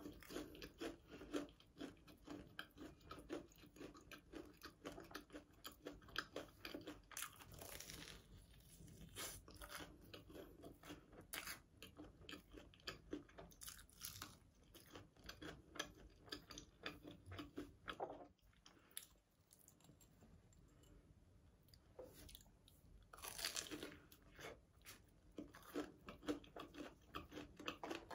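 Close-miked crunching and chewing of a sugar-coated Korean corn dog (Myungrang hotdog), the crisp crust and sugar crackling in many small clicks. There are a few louder bursts of crunching, and it eases off for a few seconds past the middle.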